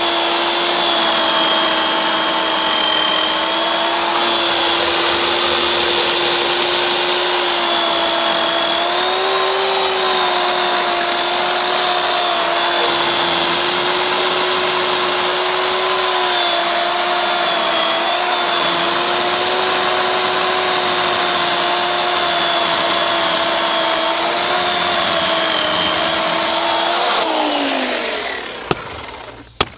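WORX 15-amp corded electric chainsaw running at full speed as a steady motor whine with chain noise, its pitch dipping and recovering slightly as it is worked. Near the end the trigger is released and the motor winds down with a falling pitch.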